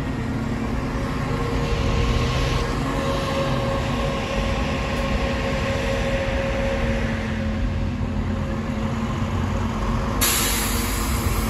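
Buses manoeuvring at close range: engine running under a steady whine as a single-decker pulls across and a double-decker turns past. A hiss starts suddenly near the end.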